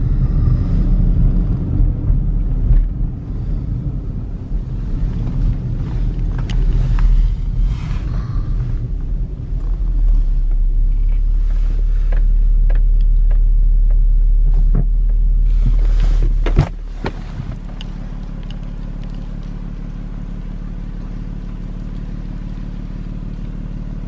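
Car driving, heard from inside the cabin: a low engine and road rumble with scattered knocks. It settles into a steadier hum, then drops abruptly about two-thirds of the way through to a quieter, steady low hum.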